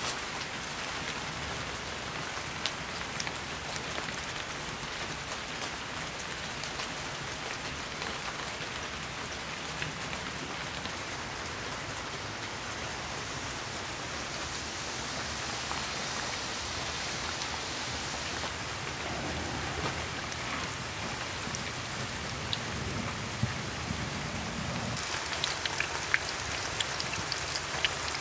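Steady patter of rain, then hot peanut oil in a cast-iron pot sizzling as a breaded veal chop is lowered in about halfway through. Near the end the sizzle grows brighter and a little louder, with many small crackles, as the chop deep-fries.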